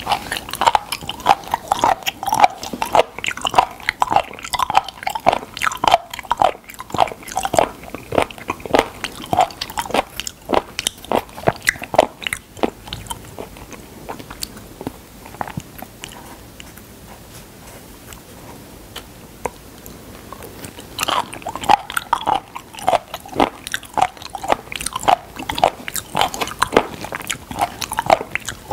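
Close-miked chewing of raw sliced spoon worm (gaebul), many quick wet chews and bites one after another. The chewing drops to a quiet stretch around the middle, then starts up again for the last several seconds.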